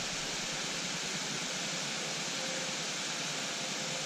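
Steady rush of water spilling over a low dam into the pool, an even hiss with no changes.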